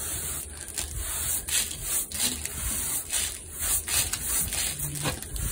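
Sponge float rubbing over a wet stucco base-coat patch in repeated rough, scraping strokes as the surface is floated and its air holes filled.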